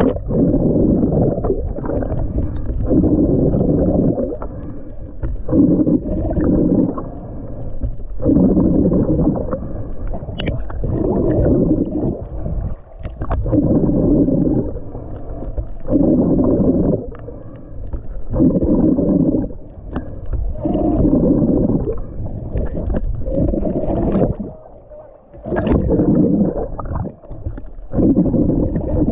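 Muffled underwater rushing in regular pulses, about one every two and a half seconds, picked up by a GoPro in its waterproof housing during snorkelling.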